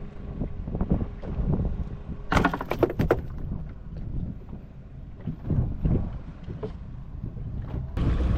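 Wind buffeting the microphone and water moving against a small fishing boat at sea. A cluster of sharp knocks comes about two and a half seconds in, and a louder rush starts near the end.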